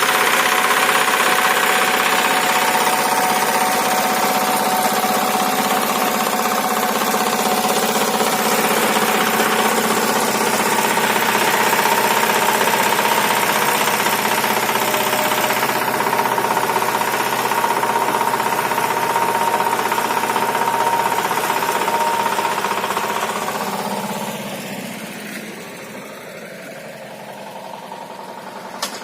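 Engine of a motorized row tiller running steadily while working between potato rows. It gets quieter about five seconds before the end, with one short click near the end.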